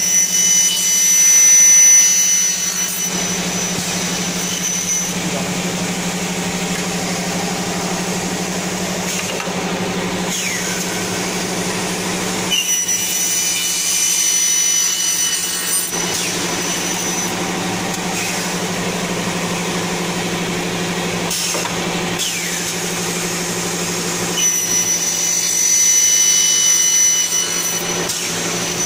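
Aluminium cutting saw with a 3 kW motor and a 455 mm blade running steadily with a low hum, cutting through an aluminium profile three times, each cut lasting a few seconds with a high metallic ring. The cuts are made dry, without coolant.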